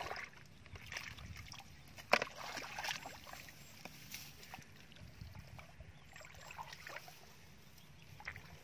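Hands splashing and scooping in shallow muddy water, with irregular sloshes and one sharp splash about two seconds in.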